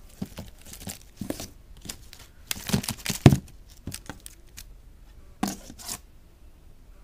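Thin clear plastic packaging being pulled off and handled, crackling and crinkling in irregular bursts. The loudest crackles come just before the middle, with another short burst near the end, then it goes quiet.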